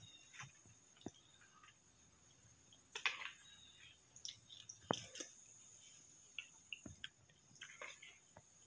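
Faint chewing with a few soft, sharp clicks and taps spaced a couple of seconds apart, as of someone eating a sandwich.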